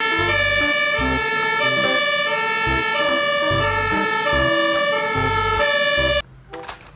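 Airport fire truck's siren sounding, alternating between two pitches over a low vehicle rumble, then cutting off suddenly about six seconds in.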